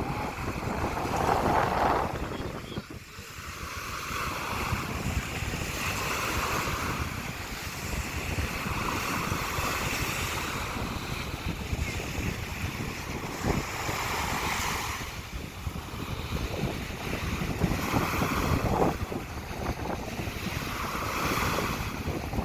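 Sea waves washing onto the shore, swelling every few seconds, with strong wind buffeting the microphone.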